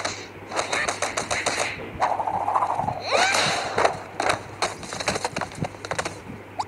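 Slapstick cartoon sound effects: two rapid rattling runs of clicks and hits, with short squeaky character cries in between.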